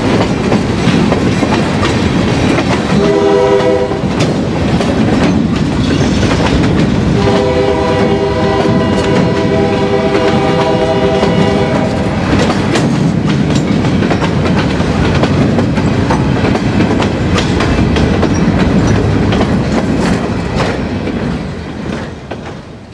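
Freight train of open-top hopper cars rolling past, steel wheels clicking over rail joints over a steady rumble. A train horn sounds as a chord twice, briefly about three seconds in and again for about four seconds from around seven seconds in. The rumble fades as the last car passes near the end.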